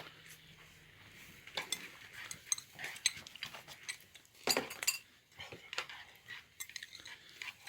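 Eating utensils clinking and tapping against cookware while people eat: a handful of scattered short strikes, the loudest pair about four and a half seconds in.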